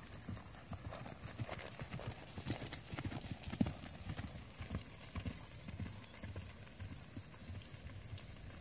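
Hoofbeats of two horses trotting on grass, a young Gypsy colt moving beside a ridden horse: a run of uneven dull thuds, with the loudest about three and a half seconds in as they pass closest.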